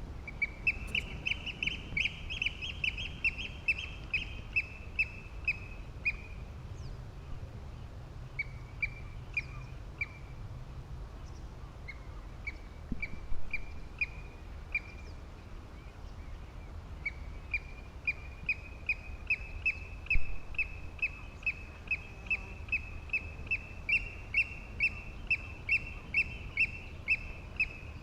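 A bird calling in long runs of short, sharp, slightly rising notes, about two to three a second, with a few brief pauses, over a steady low background rumble.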